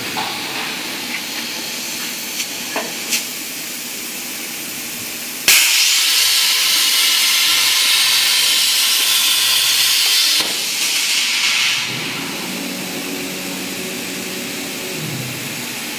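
CNC plasma torch piercing and cutting steel plate: a loud, harsh hiss of the arc starts suddenly about five and a half seconds in and runs for about five seconds. It then drops to a quieter hiss for a little over a second before stopping, over a steady low machine hiss with a few light clicks.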